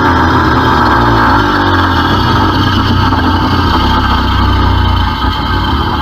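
Ogre monster roar sound effect: a long, deep, rumbling growl held steadily, easing slightly near the end.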